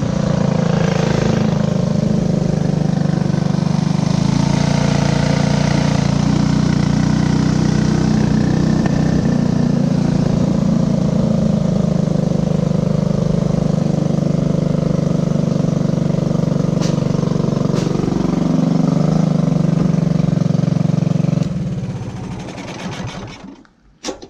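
Two 212cc Tillotson go-kart engines running steadily while the kart is driven, then shut off and winding down about three seconds before the end, followed by a sharp click.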